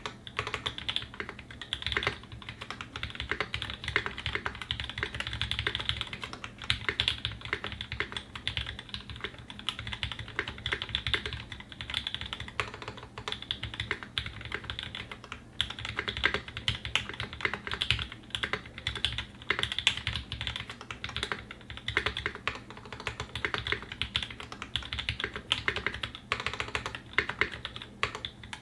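Continuous fast typing on a custom mechanical keyboard, a Singa 75 with a polycarbonate case and brass plate, lubed Tangerine linear switches and GMK doubleshot keycaps, with brief pauses between bursts.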